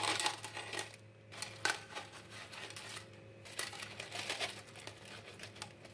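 Crisp fried chayote fritters tipped from a wire-mesh strainer onto a plate: scattered light taps and crunchy clatters, over a faint steady hum.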